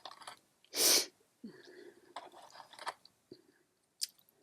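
A short, sharp burst of breath about a second in, then a soft hum and a few light clicks of small wooden game pieces being set into the holes of a wooden board.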